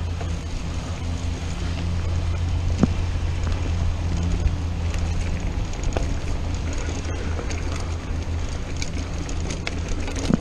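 Mountain bike rolling fast down a dirt singletrack: a steady rumble from wind on the microphone and tyres on the trail, with sharp clicks and knocks from the bike every second or two.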